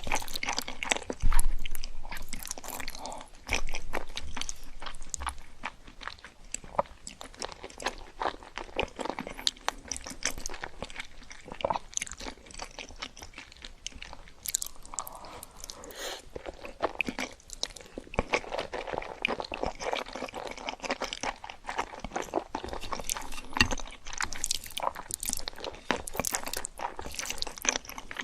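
Close-miked crunching and chewing of crisp fried food, a steady run of crackly bites and mouth sounds, the loudest bite about a second in.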